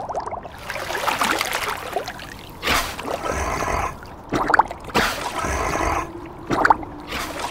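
Cartoon water sound effects: gurgling and sloshing in uneven spells as a seal sits in a water-filled ice hole, with a few short sharp accents.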